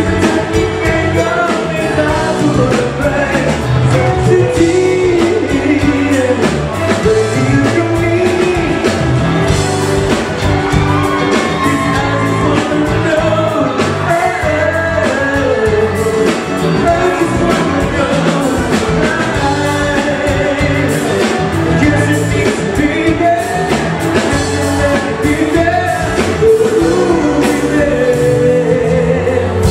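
Live pop-rock band playing a song with a male lead singer singing the melody over guitar, bass and a steady beat.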